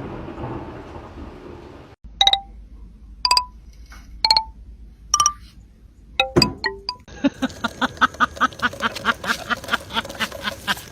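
Music: four single struck, bell-like notes about a second apart, then a quick, even run of repeated notes, several a second. It begins just after the fading tail of a loud crash.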